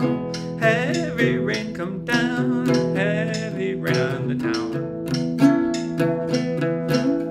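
Acoustic guitar strummed in a steady rhythm on the chords of an A-major tune, with a man singing over it for the first few seconds; the guitar carries on alone after about four and a half seconds.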